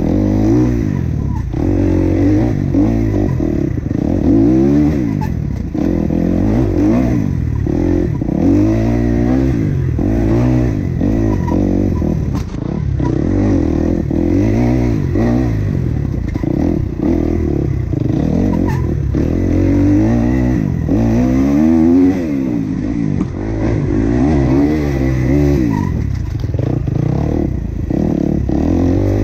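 Enduro dirt bike engine revving up and down over and over as the throttle is opened and closed every second or two, with occasional knocks from the bike over bumps.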